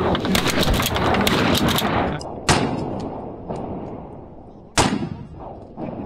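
Shotguns firing at ducks: a rapid run of cracks over the first two seconds, then two single loud shots about two and a half seconds apart, each trailing off.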